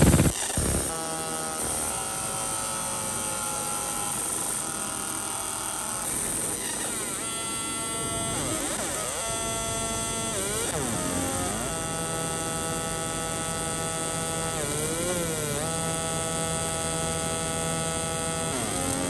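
Laser engraving machine running as it engraves a number onto a tumbler held in its rotary chuck: a steady buzzing whine of several tones that jump and briefly glide in pitch as the beam's path changes. A short loud burst comes right at the start.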